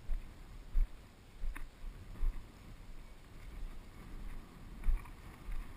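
Footsteps of a hunter walking through field cover, heard as irregular low thuds on a body-mounted GoPro, with grass and brush rustling against him.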